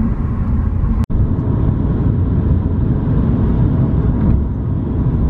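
Steady low rumble of road and engine noise heard from inside a car moving at highway speed, broken once by a split-second dropout about a second in.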